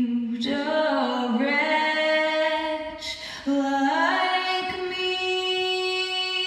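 A woman's voice singing slow, long-held notes with little or no accompaniment. The voice breaks off briefly about three seconds in, then holds one long note.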